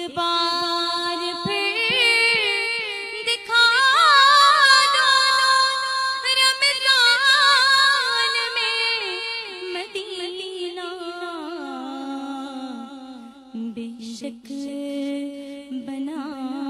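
A woman singing a naat (Urdu devotional song) into a microphone: a long, ornamented melismatic passage without clear words, with quick turns in pitch, loudest around the middle, over a steady low held note.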